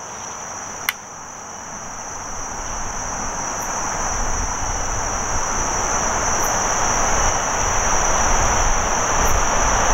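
Insects droning with a steady high-pitched buzz. There is a single sharp click about a second in, and a broad rushing noise with a low rumble that swells gradually and becomes the loudest sound by the end.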